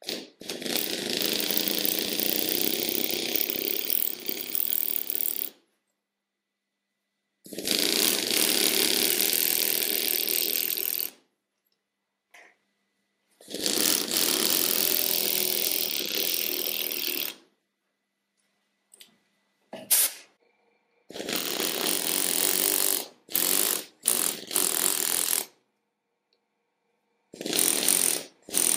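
F+K pneumatic lettering hammer driving a steel chisel into Irish blue limestone, running in several-second runs with silent pauses between as the carver stops and repositions, and a cluster of short bursts about two thirds of the way in.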